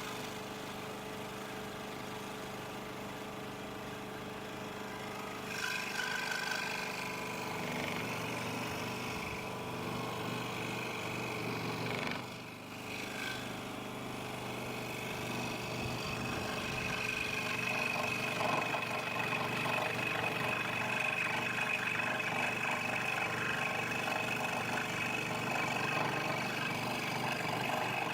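Scroll saw running and cutting timber: a steady machine hum. It drops briefly about twelve seconds in and runs a little louder in the second half.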